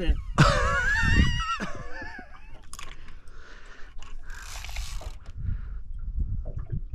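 Fishing reel at work on a hooked fish: a loud wavering squeal in the first second and a half, then short bursts of hissing, clicking drag about four to five seconds in.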